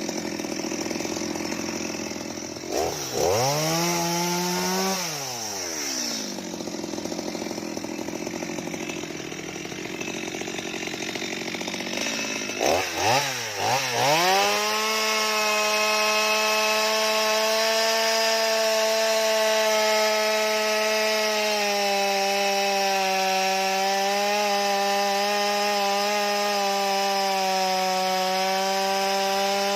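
Stihl MS 230 two-stroke chainsaw running: a rev that rises and falls about three seconds in, a few quick throttle blips about halfway, then held at steady high revs while the chain cuts into mango wood.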